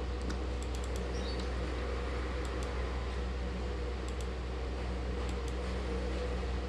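Steady low hum and hiss of room tone, with a few faint clicks of a computer mouse.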